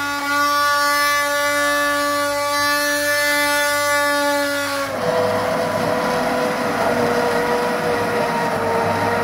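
Hand-held immersion blender running in a pot of red vegetable sauce: a loud, steady motor whine. About five seconds in the pitch drops a little and a rougher, noisier sound comes in as the blade works through the sauce.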